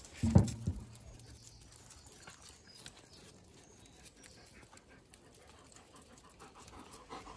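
A dog gives one short, low vocal sound about half a second in while dogs and puppies play. Faint scuffling and small ticks follow.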